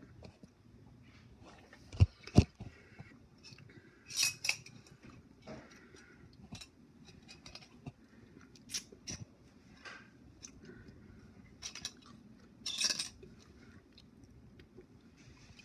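Scattered clicks, clinks and knocks of objects being handled, with two sharp knocks close together about two seconds in as the loudest sounds and a few short scraping bursts later.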